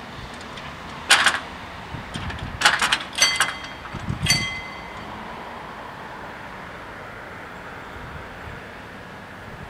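Level-crossing barrier arms coming down and clanking onto their rests: a handful of sharp metallic knocks, some ringing briefly, in the first four and a half seconds. After that only a steady hiss of wind and background noise.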